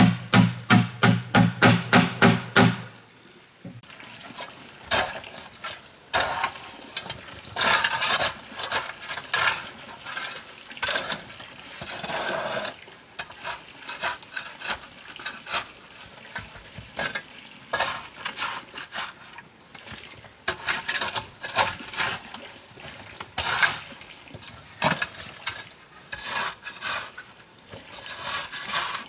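A few seconds of quick plucked music notes, which stop about three seconds in. Then comes irregular clinking and clattering of hard objects being handled, in the manner of pots and utensils.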